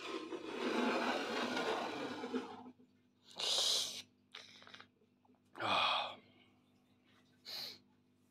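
Someone drinking a cup of tea: a long breathy blow across the cup, then four short slurping sips.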